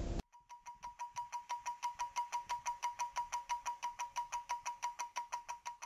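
Mechanical stopwatch ticking rapidly and evenly, about seven ticks a second, growing louder over the first couple of seconds.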